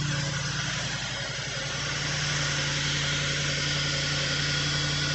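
Audi B8 S5 engine idling steadily on its first start after a carbon cleaning, running rough with misfires.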